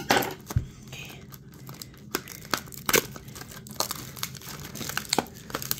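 Clear plastic shrink wrap crinkling and tearing as it is peeled off a small cardboard blind box, in a run of irregular sharp crackles.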